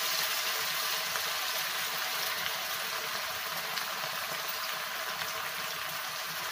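Hot sunflower oil in a kadai sizzling and bubbling steadily as battered chicken pieces for chicken 65 are deep-fried, with small pops and crackles.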